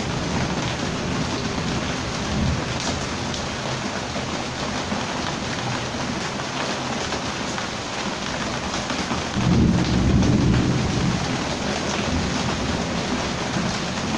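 Heavy rain falling steadily, with a low rumble swelling for a second or two about ten seconds in.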